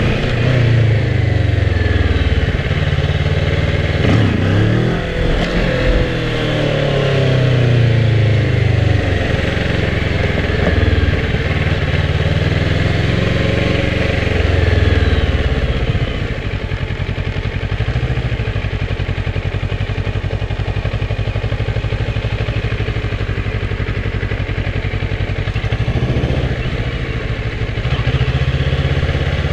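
Kawasaki ER-6f's 650 cc parallel-twin engine revving up and down several times as the bike accelerates and eases off, then running steadily at low revs for about ten seconds before another short rev near the end.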